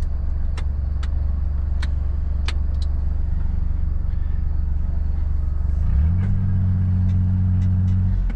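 A vehicle engine running steadily, with a few sharp clicks in the first three seconds. About six seconds in, the engine note steps up in pitch and holds there.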